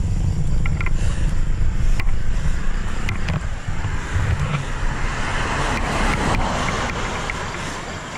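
Wind buffeting the microphone of a bike-mounted camera, with the rushing hiss of a gravel bike's tyres on damp asphalt. The rumble fades near the end as the bike slows.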